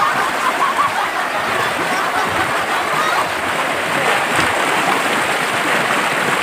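Steady rushing of flowing water.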